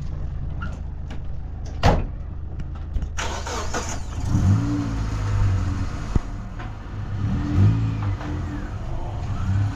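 Old pickup truck's engine running at a low idle, with one sharp knock about two seconds in, like the driver's door shutting. The engine then revs up twice, about halfway through and again near the end, as the pickup moves off.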